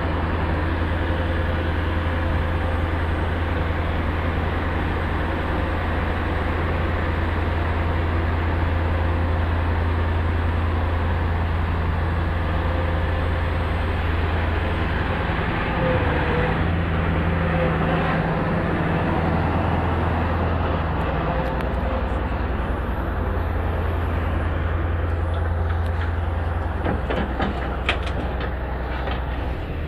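UVZ EO-5126 crawler excavator's diesel engine running steadily under load as the machine climbs onto a lowboy trailer, with a few metallic knocks near the end.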